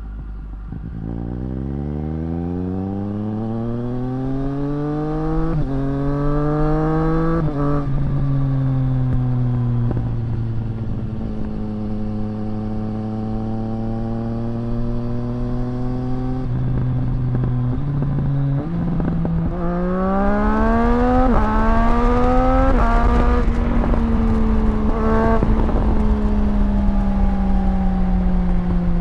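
A 2024 Triumph Street Triple RS's 765 cc inline-three engine through a Zard titanium exhaust. It pulls away and accelerates with two upshifts within the first eight seconds, each dropping the pitch. It cruises at steady revs, then accelerates again from about twenty seconds in with two quick upshifts, and the revs gradually fall away near the end as the throttle is eased off.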